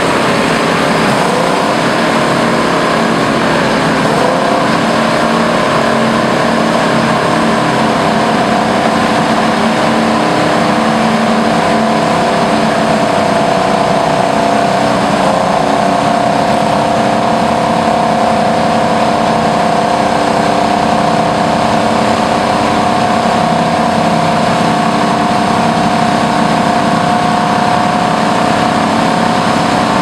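Euclid TC-12 twin-engine crawler bulldozer running hard under load as it pushes dirt with its blade down; its twin GM 6-71 two-stroke diesels drone loudly and steadily. The engine note dips briefly about halfway through, then settles slightly higher and steady.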